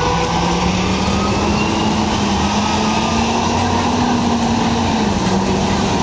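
Articulated city bus driving past, its engine a steady drone that rises slightly in pitch and then drops about five seconds in, over continuous traffic noise.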